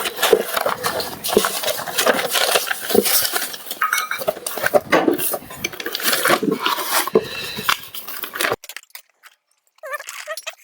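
Objects being handled and rummaged through, with irregular clinks, knocks and rustles, cutting off suddenly about eight and a half seconds in.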